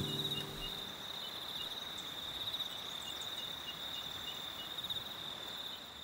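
Insects calling: a steady high trill over a regular chirp, about three a second. The last guitar chord dies away in the first second.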